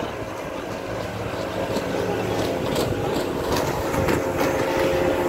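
Motorboat engine running steadily as the boat travels over choppy river water, with scattered short knocks.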